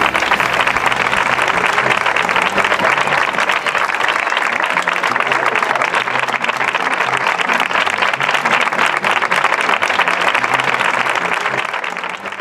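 Crowd applauding: dense, steady clapping, with music faintly underneath, beginning to fade near the end.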